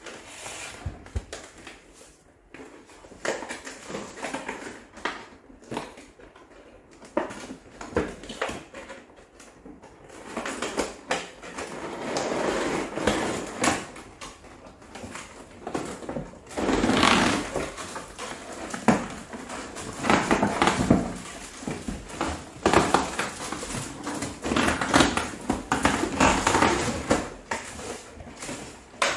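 Large cardboard box being handled and opened: light knocks and taps on the cardboard, then louder scraping and rustling as the flaps are pulled open and the packing inside slides against the box.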